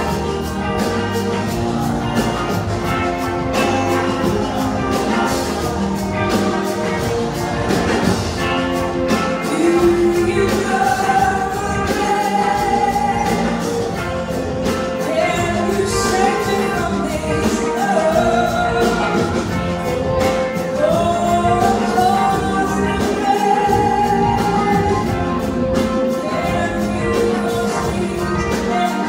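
Live rock band playing: electric guitars over drums, with a lead line that glides between notes through the middle.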